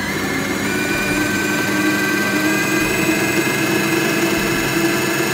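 Kenwood stand mixer's motor running steadily as it beats cupcake batter of creamed butter, sugar, eggs and vanilla in its steel bowl. Its whine steps up slightly about a second in as the speed dial is turned.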